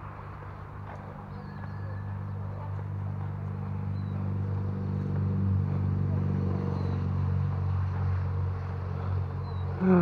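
A steady engine drone that swells over about five seconds and then eases off, with faint bird chirps above it.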